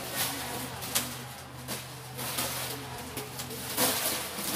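Rustling and knocking of packed goods and plastic wrappers being handled and pulled out of a cardboard box, with a few sharp clicks, over a steady low hum.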